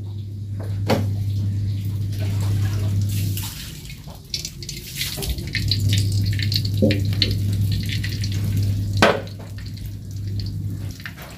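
Cooking oil poured from a tin into a wok on a gas stove, heard over a steady low hum, with a sharp knock about nine seconds in.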